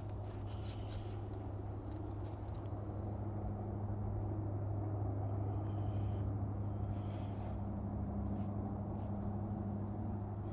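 Steady low rumble of distant road traffic, swelling a little around the middle.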